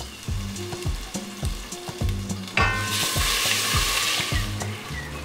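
Crushed ginger, garlic and green chillies hitting hot oil and ghee in a stainless steel pot: a sudden loud sizzle starts about halfway through and keeps going as the mix is stirred with a wooden spatula. Soft background music plays underneath.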